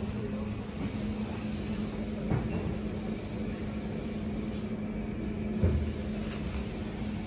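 Supermarket background: a steady low mechanical hum on one constant pitch under an even hiss, with two soft knocks, one about two seconds in and another near the end, as a plastic bottle is handled over a wire shopping cart.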